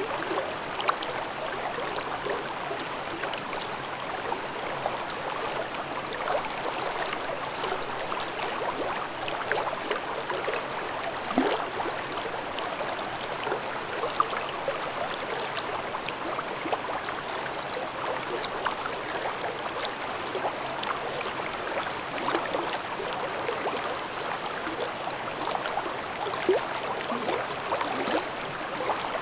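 A shallow mountain stream babbling over rocks: a steady rush of water with small splashes and gurgles throughout.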